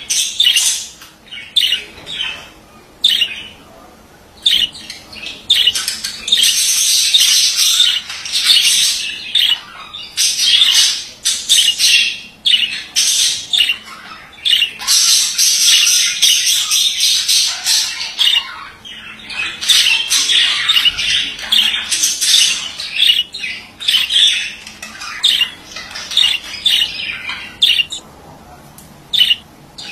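Male budgerigar warbling and chattering: a fast, unbroken string of high chirps, clicks and squawks in long bouts, with brief lulls about four seconds in and near the end.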